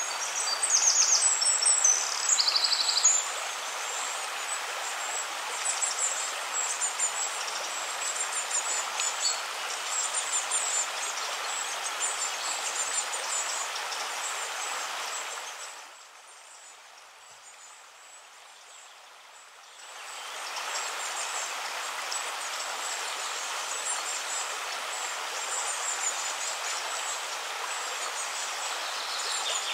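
Nature ambience: a steady rush of flowing water with small birds chirping over it, including quick bright chirp runs in the first few seconds. The water drops away for a few seconds a little past halfway, then returns.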